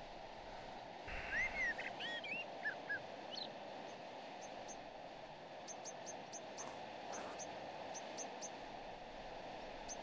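Outdoor ambience: a steady background hiss, with birds chirping a few short calls in the first few seconds, then a string of brief high chirps repeating through the rest.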